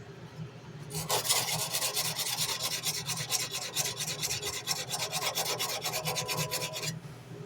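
Wet sandpaper rubbed by hand along a steel tanto knife blade in fast back-and-forth strokes, several a second. The scraping starts about a second in and stops near the end.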